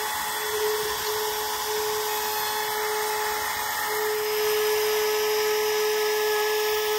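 Compact trim router with a flush-trim bit running with a steady whine as it cuts overhanging fiberglass cloth back flush with a wooden hatch frame.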